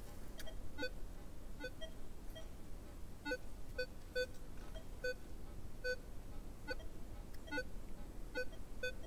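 Metal detector giving short, repeated target beeps as its coil is swept back and forth over a gold target buried in soil, about two to three beeps a second. The signal is good but mixed with iron tones.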